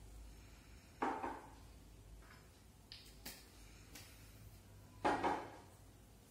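Two knocks about four seconds apart, with a few light clicks between them: a glass bottle and whisky tumbler being handled and set down on a table.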